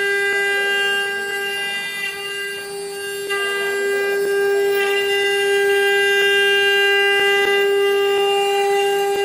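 The eight spindles of a 4-axis rotary CNC router run together through a finishing pass, giving a steady high-pitched whine with faint ticks from the cutters. The whine dips a little about two seconds in and comes back louder a second or so later.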